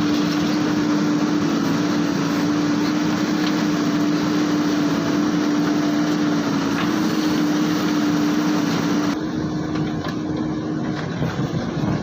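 Diesel engine of a JCB backhoe loader running under load, with a steady droning tone over the engine noise. The sound gets a little quieter and duller about nine seconds in.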